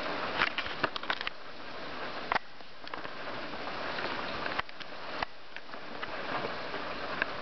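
Heavy rain falling steadily in a thunderstorm, with scattered sharp taps, a cluster near the start and then single ones every second or two.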